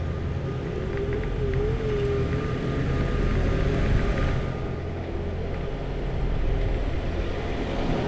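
Riding a Bird electric scooter: steady low rumble of wind and road noise on the action camera's microphone, with a wavering whine for a couple of seconds near the start.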